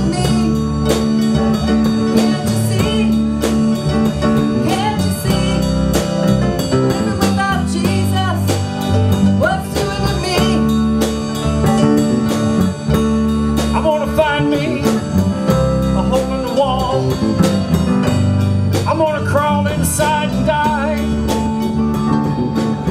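Live blues band playing an instrumental passage: electric guitar lines over bass guitar and drum kit, the guitar bending notes in the second half.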